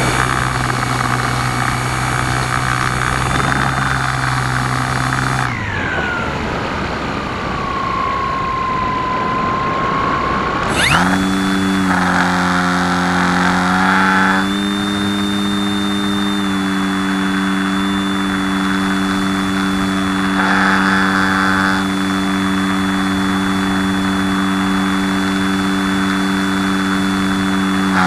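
Dancing Wings Spanner FPV plane's motor and propeller, heard through the onboard camera with steady wind rush. The motor is throttled back about five seconds in, its note falling away, then power is added sharply near eleven seconds and it runs steadily at a higher note.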